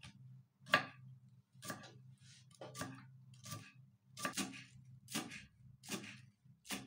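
Kitchen knife chopping scallions on a wooden cutting board: a sharp knock about once a second, eight or so in all, over a faint steady low hum.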